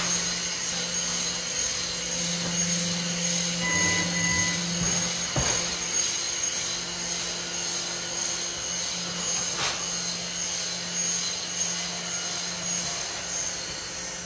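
Automatic steel grating welding machine running, a steady low hum with hiss, with a couple of sharp clicks and a short beep about four seconds in.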